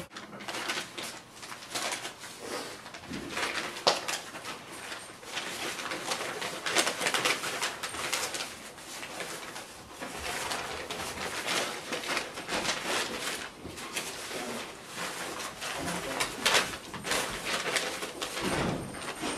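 Loose sheets of paper rustling and crinkling as they are handled and shuffled, a continuous run of short crackles.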